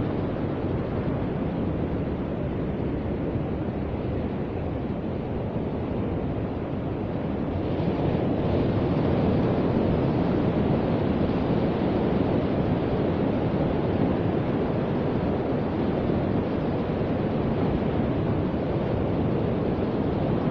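Sea surf breaking and washing up a sandy beach, a steady rushing noise with wind buffeting the microphone. It grows louder about eight seconds in.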